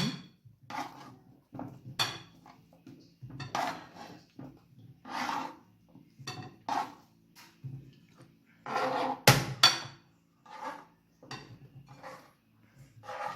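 Dishes and cutlery knocking and clinking, an irregular run of taps and short scrapes, with the sharpest clatter a little past nine seconds in.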